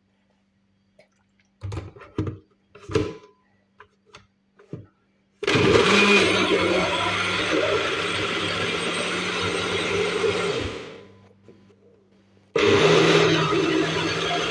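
Electric blender blending fruit with water: a few knocks and clicks, then the motor starts about five seconds in and runs steadily, winds down with a falling pitch around ten seconds in, and starts up again near the end.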